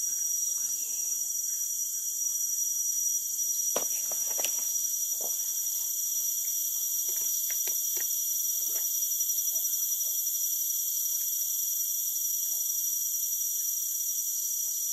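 Steady, high-pitched chorus of tropical forest insects, crickets or cicadas, buzzing and trilling without a break. A few faint short clicks and chirps come through it in the middle.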